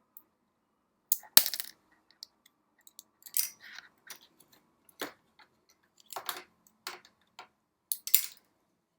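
Small parts of a dismantled keyboard joystick being handled and set down: scattered clicks and light taps, with a sharp click about a second and a half in and another near the end.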